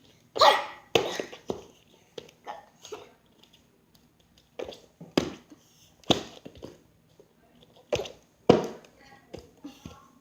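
A person doing cartwheels on a living-room floor: about a dozen short, sharp thuds and bumps of hands and feet landing, at irregular intervals, mixed with short breathy voice sounds. The loudest come about half a second in and near the end.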